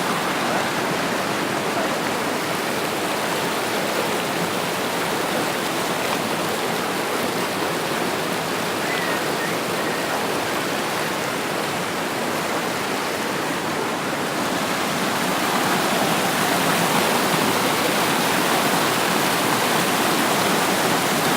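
Waterfall and river water rushing steadily.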